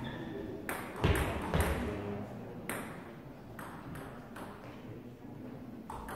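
Table tennis ball knocks: single sharp clicks of the ball striking table and bat, spaced a second or so apart, as a point is set up and served. A louder dull thud about a second in.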